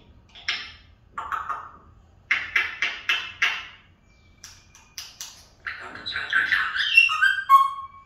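African grey parrot calling: a string of short raspy squawks and clicks, then louder chatter ending in a few whistles that drop in pitch near the end.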